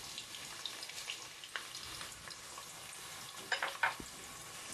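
Sliced onions sizzling and crackling in hot oil in a steel pot, just tipped into the heated oil to start frying. A few sharper clicks stand out a little before the end.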